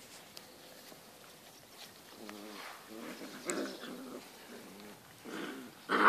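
Alaskan Malamute puppies play-growling while they wrestle: a string of short growls starting about two seconds in, growing louder near the end.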